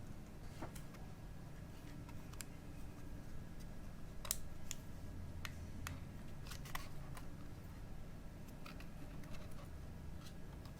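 Camera handling: about a dozen light, irregular clicks of buttons, dials or the shutter, over a low steady hum.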